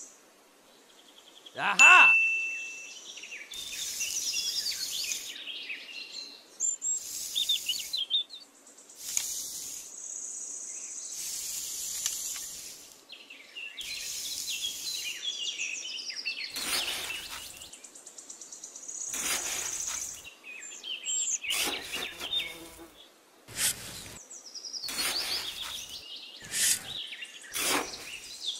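Birds chirping and insects buzzing, with a short loud sweep about two seconds in. From a little past halfway, a small metal hand trowel scrapes and digs into damp sand in repeated strokes.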